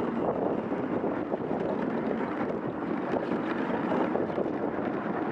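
Husky-drawn dog sled moving over a packed snow trail: a steady scraping rush from the runners on the snow, with wind buffeting the microphone.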